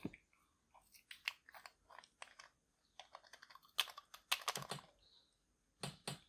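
Cap of a glass nail polish bottle being twisted open in the fingers: a run of small clicks and crackles, in a few short clusters, the loudest about four seconds in.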